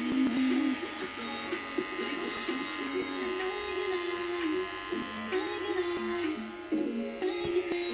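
Electric hair clippers buzzing steadily as they trim the hairline at the nape of the neck, under background music with a sung melody.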